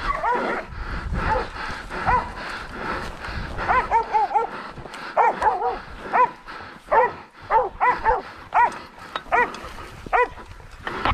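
Podenco hounds barking in quick, high yelps, in bursts of several with short gaps between them. They are baying a wild boar that they hold at bay.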